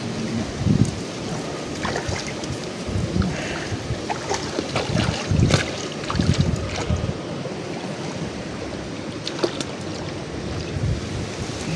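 Steady wind rushing on the microphone and reeds rustling close by, with a few dull thumps and scattered sharp clicks.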